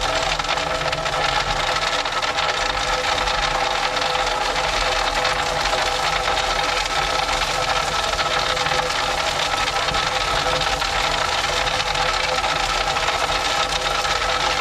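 Track maintenance machine's engine running steadily, with a rattle.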